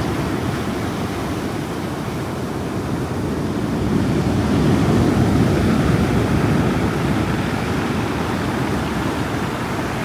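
Storm surf breaking and washing in foam over a pebble beach and around concrete breakwater blocks, a continuous rush that swells louder as a wave surges in near the middle.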